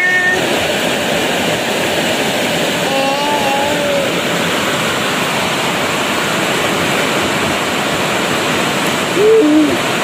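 Heavy rain pouring down steadily in a loud, even hiss. A short pitched call cuts through it about three seconds in and again near the end.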